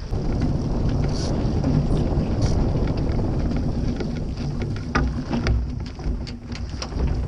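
Wind buffeting the microphone of a mast-mounted camera on a foiling Mach2 Moth dinghy, a steady low rumble with the hiss of spray. Scattered sharp ticks come through, more often in the second half.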